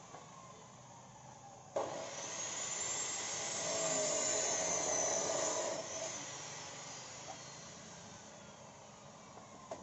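Electric chop saw starting up sharply about two seconds in and cutting through the end of a wooden spade handle, then winding down from about six seconds in as the motor slows.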